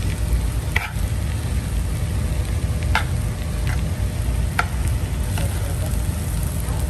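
Fried rice being stir-fried in a frying pan: it sizzles while a metal spatula scrapes and knocks against the pan a few times. A steady low rumble runs underneath.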